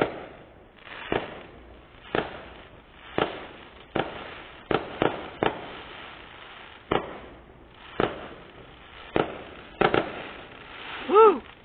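Fireworks being set off: about a dozen sharp bangs at uneven intervals, roughly one a second, with a steady hiss between them.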